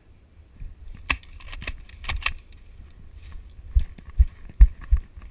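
Handling and movement noise: a few sharp clicks and rattles, then a run of dull thumps about two or three a second.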